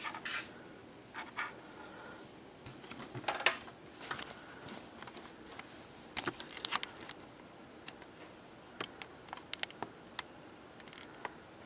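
Faint, scattered small clicks and taps of handling: a hand-held flashlight being moved about in the mouth of the AC receiver-dryer bore, over a quiet background hiss.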